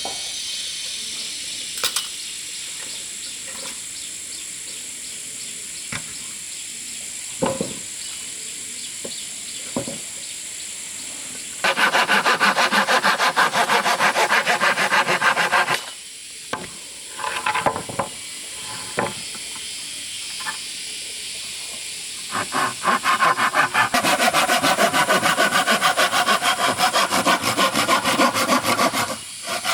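Wood being sawn by hand, in two long spells of rapid, even back-and-forth strokes, about a third of the way in and again from roughly three quarters of the way through. Between the spells are quieter stretches with a few scattered knocks of wood.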